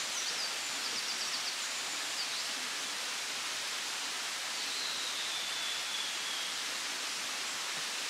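Steady rush of a mountain stream. Birds give quick high chirps over it in the first couple of seconds, and a thin falling whistle comes about halfway through.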